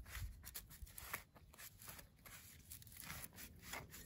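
Faint scraping and crunching of a hand trowel cutting into grassy sod and soil, with scattered soft clicks.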